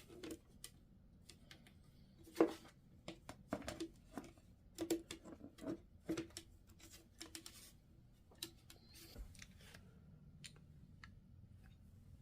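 Action-figure packaging being opened and handled by hand: an irregular run of clicks, crinkles and rustles, busiest in the first half and thinning to a few ticks near the end.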